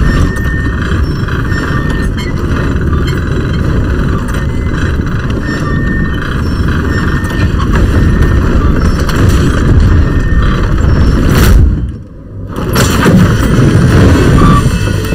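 Loud, low rumbling film sound effects with no speech. The rumble cuts out suddenly for about a second near the twelve-second mark, then swells back up.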